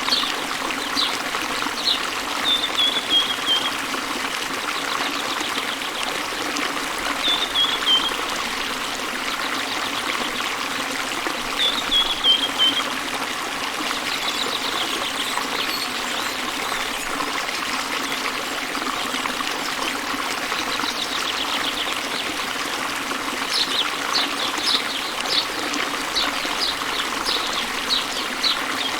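Waterfall spilling into a river, a steady rushing of water, with birds singing over it: three short falling trills in the first half and a quick run of high chirps near the end.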